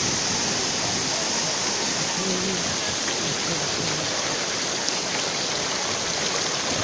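Steady rush of a waterfall, falling water plunging and splashing at a constant level.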